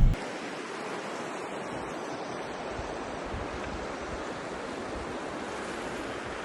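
Steady rushing of river water, an even hiss with no separate events.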